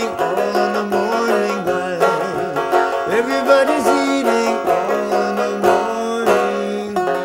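Mountain banjo, a small drum head set in a large wooden rim, played solo: a picked melody with notes ringing over one another.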